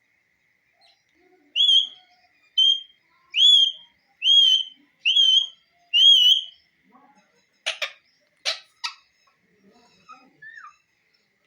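Parrot whistling a string of six short clear notes at a steady pace, each rising then dipping slightly. Two short harsh calls and a brief falling whistle follow near the end.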